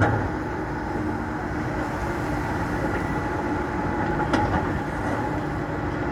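Excavator working, its diesel engine running steadily with a steady hum, and one sharp knock a little over four seconds in.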